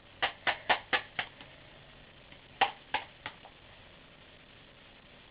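Ramrod pushing BBs through an airsoft loader: a quick run of sharp clicks, about four a second, for the first second and a half. Three more clicks follow after a short pause, near the middle.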